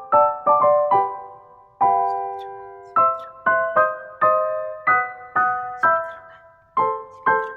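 Background music: a slow piano or electric-piano melody of single struck notes, each fading away, with a few longer held notes partway through.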